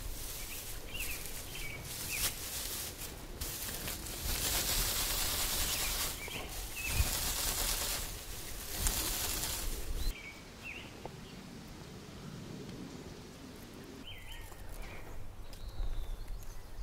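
Dry grass crushed and rubbed between the hands to work it into a tinder bundle: a crisp rustling, loudest through the first ten seconds, then much quieter. Birds chirp briefly now and then.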